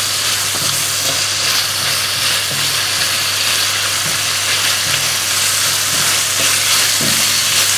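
Beef cubes and garlic sizzling steadily in a hot wok while being stir-fried with a spatula, with a few soft stirring knocks and a low steady hum underneath.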